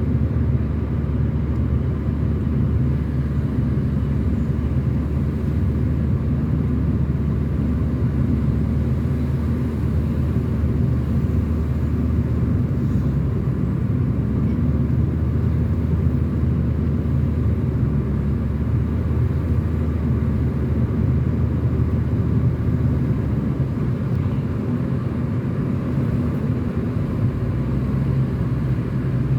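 Car driving at a steady speed, heard from inside the cabin: a steady low engine and road hum with no sharp events.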